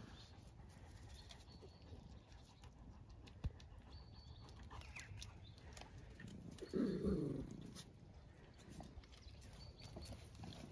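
Faint high bird chirps now and then, and one short low animal call about seven seconds in, the loudest sound.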